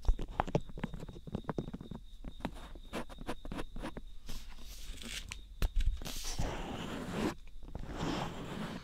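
Fingers touching and rubbing the ears of a dummy-head binaural microphone: many sharp close crackles and scratches, then a longer rubbing swish in the second half.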